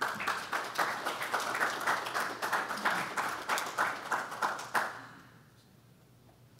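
Audience applauding: many hands clapping densely, dying away about five seconds in.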